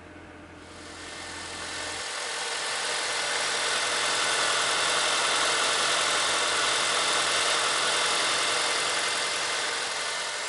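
Honda Accord engine running steadily, heard mostly as an even whirring hiss that swells up over the first few seconds and eases off slightly near the end.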